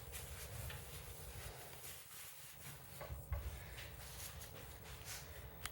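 Faint rubbing with a few light knocks: a cloth wiping spray cleaner off a plastic headlight lens.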